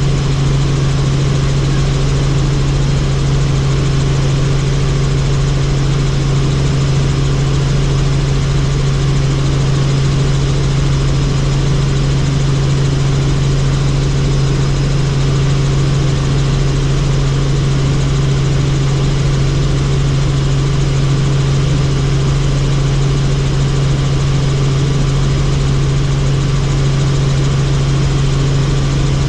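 Helicopter in flight, running steadily: a loud, even drone with a strong low hum that holds at one pitch throughout.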